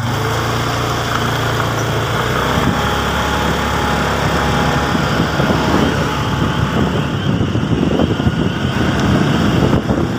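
Motorcycle engine running steadily while riding, over a constant rushing noise of wind and road, picked up by a phone microphone.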